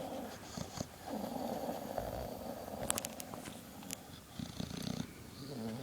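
English bulldog snoring: long noisy snoring breaths, one ending within the first second and a longer one from about one to three seconds in, with a few sharp clicks about three seconds in.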